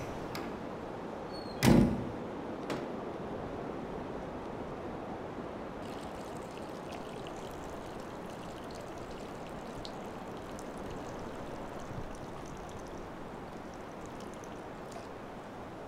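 A door shuts with a single heavy thud about two seconds in, followed by a few faint clicks, over a steady rushing hiss of background noise.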